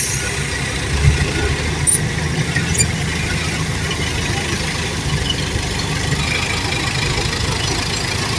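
An engine running steadily at idle, a low even rumble, with a few light clicks in the first three seconds.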